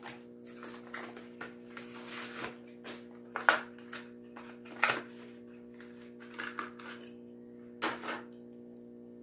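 A Matchbox toy truck's plastic blister pack and cardboard card being torn open by hand: scattered crinkles, snaps and clicks, the sharpest about three and a half, five and eight seconds in.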